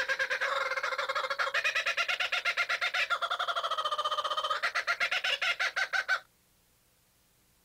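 Sound effect of rapid, chicken-like clucking: fast even pulses, about nine a second, its pitch stepping up and down a few times. It cuts off about six seconds in.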